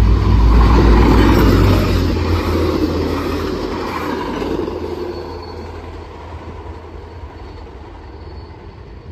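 Tri-Rail bi-level commuter train passing close by over a grade crossing, a heavy low rumble of wheels on rail, loudest in the first two seconds and then fading away. In the second half, a quieter, steady sound of a train approaching from a distance.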